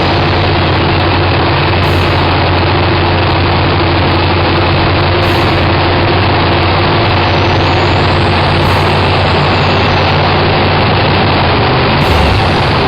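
Drag-racing car's engine running steadily at idle: a loud, even, low drone with no change in pitch.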